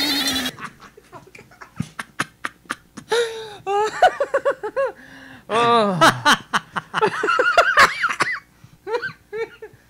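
Two men laughing into handheld microphones in fits of giggles and chuckles. Loud music cuts off about half a second in, and a few clicks and knocks come before the laughter starts.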